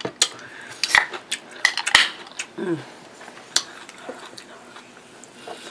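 Close-miked eating noises: a scatter of sharp clicks and smacks, the loudest about one and two seconds in, with a short falling hum of the voice near the middle.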